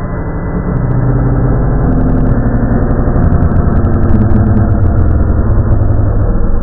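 A sped-up sound effect: a loud, low, engine-like rumble with a fast pulse, getting louder about a second in.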